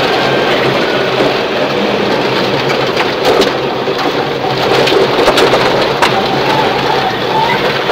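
Inside a Subaru Impreza rally car at speed on gravel: a loud, continuous rush of tyres on loose stones, with gravel spraying against the underbody and wheel arches and sharp stone strikes cracking through, most of all a few seconds in. The car's flat-four engine runs underneath.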